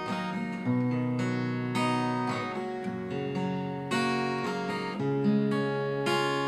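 Acoustic guitar played in a combined picking-and-strumming pattern: a bass note, a few plucked strings, then a quick down-up strum, repeated with the chord changing every couple of seconds.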